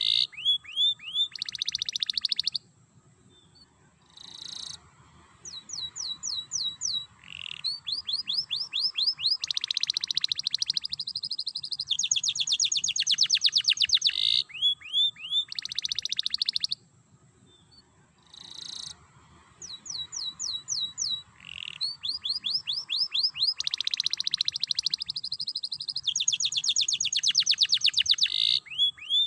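Domestic canary singing in long phrases of rapid trills and rolling runs of quick, sweeping notes, the rattling 'ngerek' style of a canary in full song. The song stops twice for about two seconds, near the start and again around the middle, then resumes.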